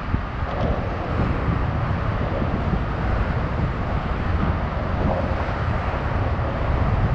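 Wind buffeting the microphone: a steady, fluctuating low rumble with no distinct events.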